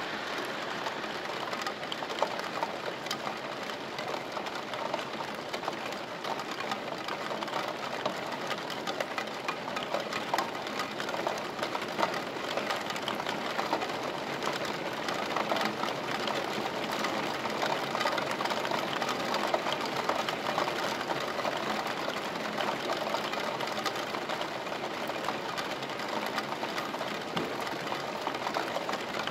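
Steady rain, a continuous hiss of falling water with a dense, rapid ticking of individual drops.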